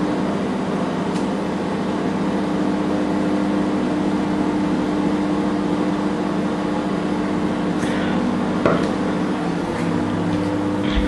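Microwave oven running with a steady electrical hum, with a few faint clicks in the last few seconds.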